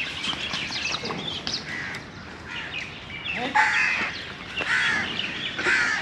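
Birds calling: light chirps, then three louder rough calls about a second apart in the second half.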